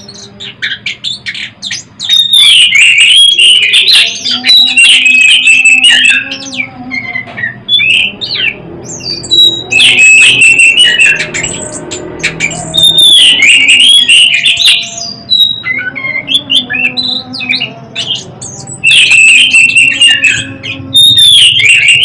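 Chestnut-capped thrush (anis kembang) singing loud, quick runs of whistled, sliding notes in several bouts with short pauses between them.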